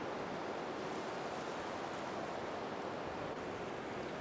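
Ocean surf heard as a steady, even rushing noise.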